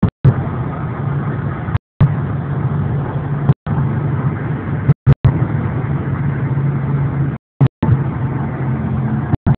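Steady cabin noise of a Lexus LS460 cruising at motorway speed, a low engine and road hum with tyre and wind noise, heard from inside the car. The sound cuts out to silence several times for a split second, with a click at each break.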